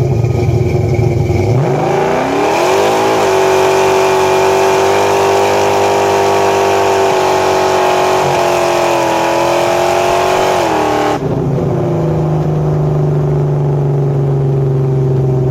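Chevrolet 502 big-block V8 crate motor with a cam and Alien intake, freshly retuned with more fuel and ignition timing, pulled hard at full throttle with the rear tyres spinning. The revs climb steeply in the first few seconds, then hold high with a brief dip around eight seconds in. About eleven seconds in the throttle closes and the engine falls back to a lower, steady rumble.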